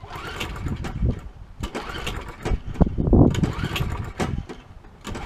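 Recoil starter cord pulled several times on a 1990 Rally mower's 5 hp Briggs & Stratton Quantum engine. Each pull gives a rising-then-falling whir as the engine turns over without running. The pulls are cranking fuel into the engine's gas chamber, a priming trick used on Quantum engines.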